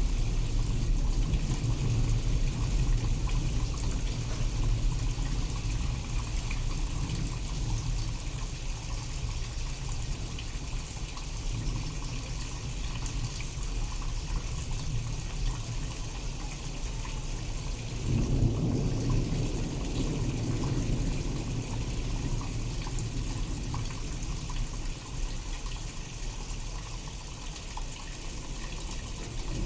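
Steady rain with thunder: a low rumble fading over the first few seconds, then a new roll of thunder that starts suddenly about 18 seconds in and dies away slowly.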